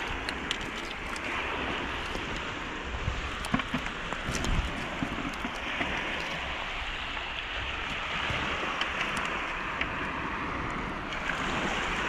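Shallow seawater washing and trickling among shoreline rocks, a steady hiss that swells and ebbs. There are scattered clicks, and a few knocks come between three and four and a half seconds in.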